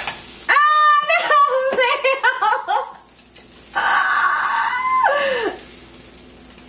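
High-pitched women's laughter and squealing: a run of rapid, gliding squeals and giggles, then after a short pause one long high shriek that drops in pitch as it ends, as a pancake flip goes wrong.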